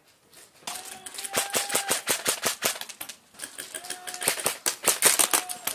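Airsoft guns firing in rapid automatic bursts: a fast rattle of sharp clicks that starts about half a second in, pauses briefly around three seconds in, then resumes.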